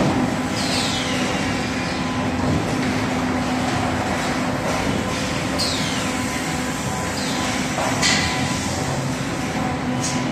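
Factory noise of a car-body spot-welding line: a steady hum under a constant mechanical din, with a few hisses that fall in pitch and sudden louder bursts about eight and ten seconds in.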